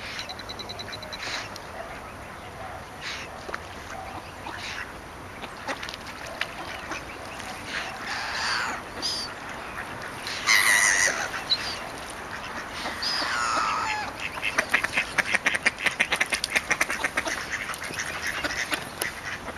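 Mallard ducks quacking, with gulls calling among them: a few drawn-out calls several seconds apart, then a fast, busy run of short quacks in the last five seconds.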